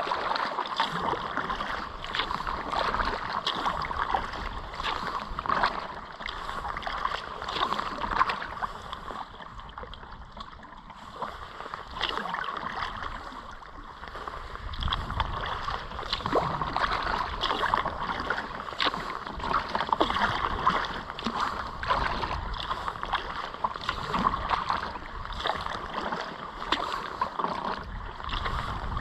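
Kayak paddle strokes splashing and dripping in river water, an irregular patter of small splashes over a steady watery rush.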